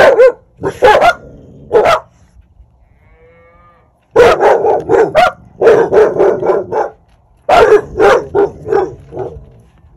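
Dogs barking in loud, rapid volleys of short barks, with a pause of about two seconds early on. They are alert-barking at cattle walking past.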